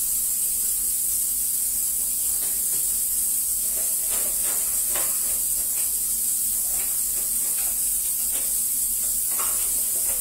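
A steady high-pitched hiss, with faint clinks and knocks of dishes and kitchenware being handled, a cluster about two to five seconds in and a few more near the end.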